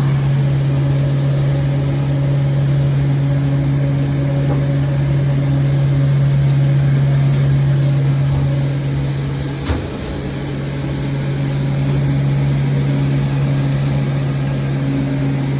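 An engine or motor running steadily with a low, even hum. A brief click comes about ten seconds in.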